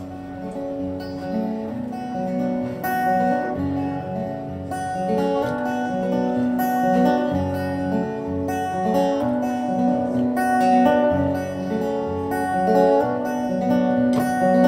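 Acoustic guitar strummed in a steady rhythm, playing the instrumental introduction to a song, growing louder as it goes.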